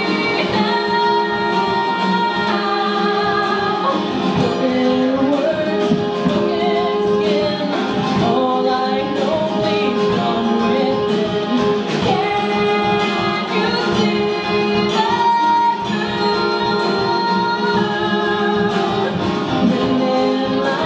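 Live acoustic rock: a woman singing into a microphone over a strummed acoustic guitar, the voice holding long notes.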